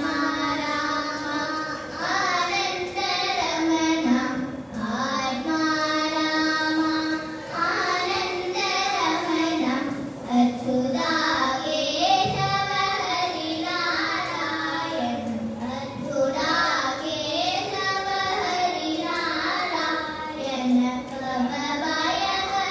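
Two girls singing a Carnatic vocal piece together through microphones, one melody line that slides and bends between notes in long phrases with brief pauses for breath.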